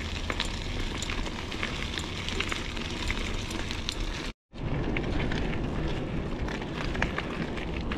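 Crackling and crunching over a low rumble of wind on the microphone, typical of a bicycle's tyres rolling over a rough dirt and gravel trail. There is a brief dropout to silence about four and a half seconds in.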